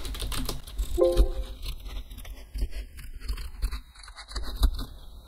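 Typing on a computer keyboard: a quick, irregular run of keystrokes as configuration commands are entered.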